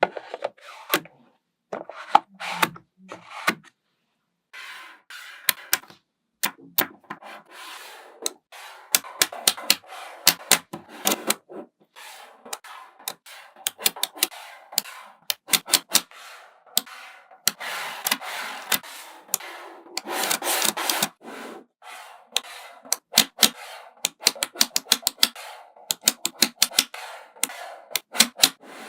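Small magnetic balls clicking sharply against each other as they are snapped into place, in irregular runs of quick clicks, with a rubbing rattle as clusters of balls roll and slide.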